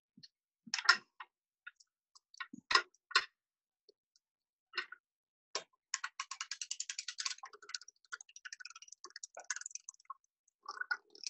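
Hand-cranked Erlbacher circular sock knitting machine clicking during a cast-on: several separate sharp clicks, then about six seconds in a fast, even run of rapid clicks lasting about two seconds as the crank is turned, trailing off into scattered clicks.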